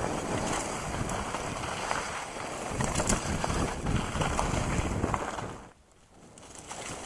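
Wind buffeting the microphone of a mountain biker's action camera over the rumble of tyres rolling on a dirt trail, with scattered knocks and rattles as the bike goes over bumps. The sound drops out for about half a second near the end.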